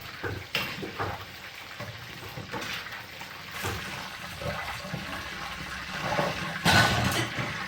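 Water running and splashing as food is rinsed a second time, with small knocks throughout and a louder burst of sound near the end.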